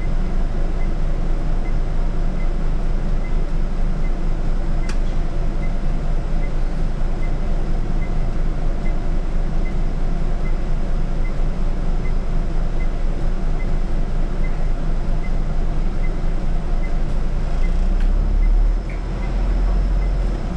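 Scania city bus under way, its diesel engine and road noise running steadily as heard from the driver's seat. A light tick repeats about every 0.7 seconds, and there is a single sharp click about five seconds in. Near the end the low rumble swells, then drops off sharply.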